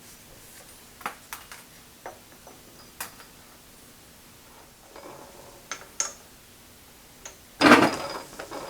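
Scattered light clicks and taps from handling tools and metal parts at a stopped lathe, with one louder clunk near the end.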